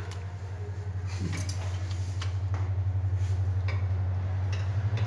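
Kitchen knife chopping a bunch of green chillies on a wooden cutting board: rapid, even strokes, several a second.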